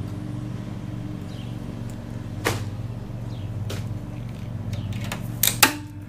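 Scattered metal clicks from the brake/stop cable being worked loose at the engine of a Toro push mower: single clicks about two and a half and nearly four seconds in, then two sharper ones close together near the end. A steady low hum underneath.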